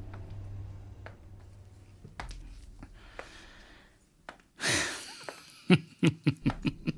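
A soft music cue fades out, then the track is quiet but for a few faint clicks. About halfway through comes a short rushing noise, followed near the end by a quick, uneven run of sharp, loud clicks.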